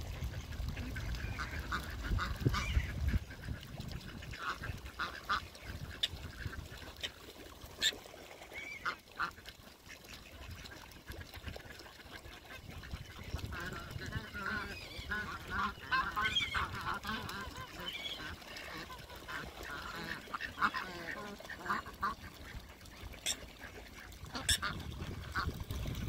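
A mixed flock of ducks and geese calling: scattered quacks and honks from many birds, thickest in the second half. A low rumble underlies the first few seconds.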